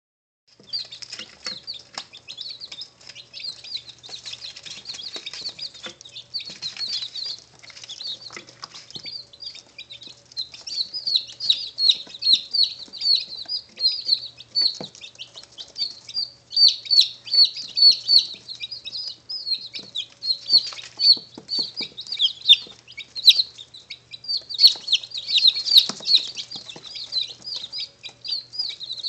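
A brood of two-day-old chicks (Buff Orpingtons, Barred Plymouth Rocks and Speckled Sussex) peeping constantly: many short, high, falling peeps a second, louder from about ten seconds in. Occasional light taps and a faint steady hum sit underneath.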